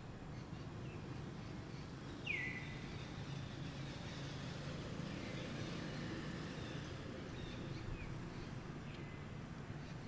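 Outdoor ambience with a steady low rumble, broken by a few high animal calls that sweep sharply down in pitch and then hold briefly; the loudest comes about two seconds in, with fainter ones later.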